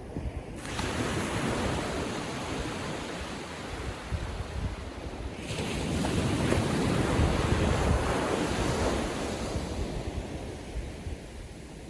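Small ocean waves breaking and washing up on a sandy beach in calm seas. The surf swells about halfway through and eases off near the end, with some wind buffeting the microphone.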